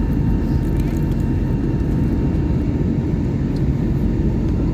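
Steady roar inside the cabin of an Airbus A321neo in flight: airflow and its Pratt & Whitney PW1100G engines, with a faint steady high tone over the deep rumble.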